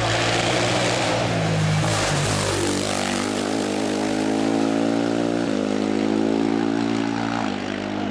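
Steyr-Puch TR II hillclimb car's two-cylinder boxer engine, fitted with KTM LC4 valve gear, running hard as the car passes close by and pulls away. The sound is harsh and noisy at first, then settles into a clear, steady engine note that drops in pitch twice, about five and a half and seven and a half seconds in.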